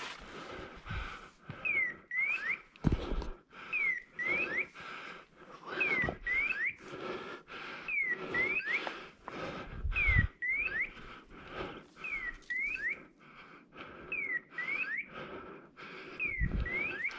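A hunting dog's beeper collar sounding a pair of short electronic chirps, one falling and one rising, repeated about every two seconds: the signal that the setter is holding a point. Underneath are footsteps crunching through brush and stones.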